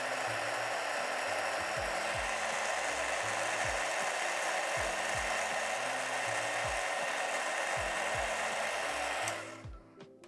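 Heat gun blowing hot air, shrinking heat-shrink tubing over the solder joints of a USB connector. It makes a steady rushing hiss and is switched off about nine seconds in.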